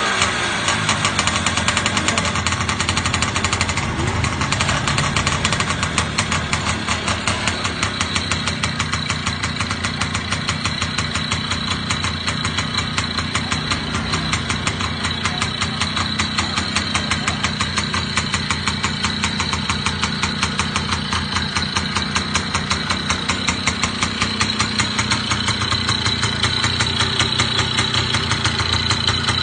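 1957 Tohatsu 98cc two-stroke motorcycle engine idling steadily, with a rapid, even firing beat.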